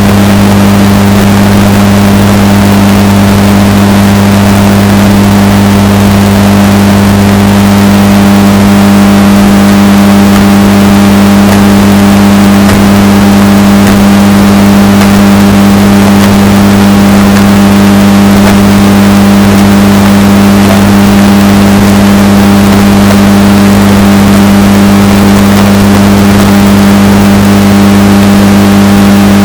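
Washing machine running with a steady motor hum that holds one pitch throughout, heavily bass-boosted and very loud, close to clipping.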